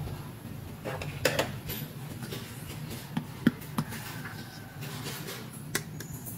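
Small plastic toy vanity table being handled: light plastic clicks, taps and rubbing, with several sharper knocks, the loudest about halfway through. A low steady hum runs underneath.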